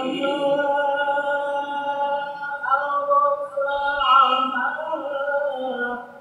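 A man reciting Quranic verses in a melodic chant into a microphone, holding long drawn-out notes that slide slowly in pitch.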